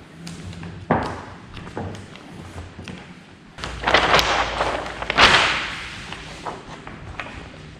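Work noises from handling vinyl graphics on a car door panel: a thump about a second in, then two louder rustling, scraping bursts around the middle.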